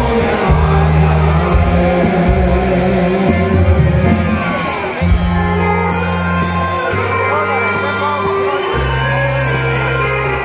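Live band music: accordion, electric bass and drums, with a man singing into a microphone over held bass notes that change every second or two. Shouts and whoops from the crowd come in at times.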